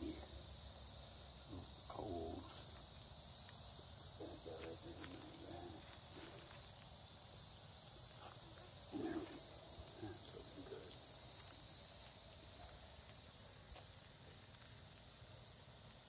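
Insects chirring steadily in a high pitch, with faint crackling from a small wood campfire. A few short, muffled low sounds come and go, the loudest about nine seconds in.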